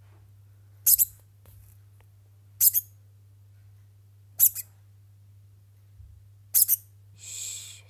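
Degu squeaking: four short, sharp, high-pitched double chirps about two seconds apart, then a longer whining call near the end, which the owner calls sad degu sounds.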